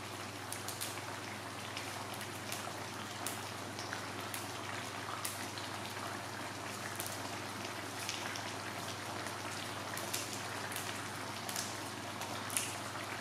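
Fish in lemongrass-paste sauce sizzling in a wok on a gas burner: a steady hiss with scattered crackles and pops, the sharpest near the end, over a low steady hum.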